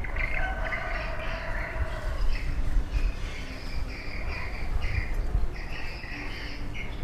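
Short bursts of high chirping, birds or insects, repeating irregularly over a steady low rumble.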